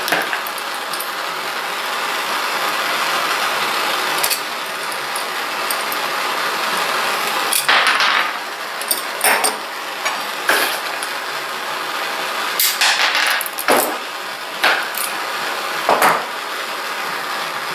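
A lit handheld gas torch burning with a steady hiss. Several sharp metallic clinks and knocks of tools being handled come in the second half. The hiss drops away at the very end.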